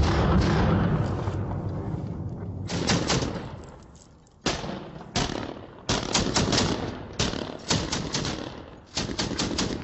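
Short bursts of fire from a belt-fed PKM-type machine gun, a few rounds each and about a second apart, with a near-quiet gap about four seconds in. It opens with a louder burst that rolls on for about a second.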